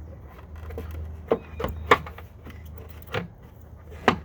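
Plastic rear turn-signal light housing of a 2009 Jeep Patriot being pushed back onto its mounts: a few sharp plastic clicks and knocks as it snaps into place, the loudest about two seconds in. A low steady hum runs under the first half.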